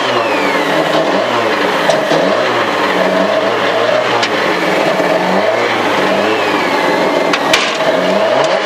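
Lada 2107 rally car's four-cylinder engine revved again and again while the car stands still, the pitch rising and falling about once a second, heard from inside the cabin. A sharp click near the end.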